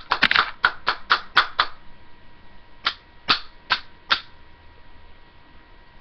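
A hammer knocking on the plastic pieces of a broken Dell computer mouse: a quick run of about eight sharp knocks in the first second and a half, then four more, evenly spaced, around three to four seconds in.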